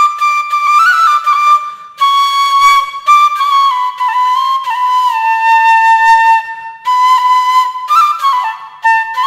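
A flute playing a slow melody of long held notes that slide between pitches, with short breaths between phrases.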